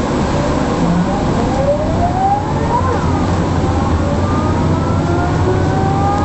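Mercedes-Benz O405 bus's diesel engine pulling under load, with a steady low drone and a whine from the driveline that rises slowly in pitch as the bus gathers speed. The whine drops and climbs again about three seconds in.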